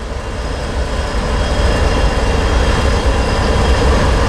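Union Pacific freight train led by Tier 4 diesel locomotives passing close by at slow speed on a yellow signal: a loud, steady rumble with faint steady high tones above it.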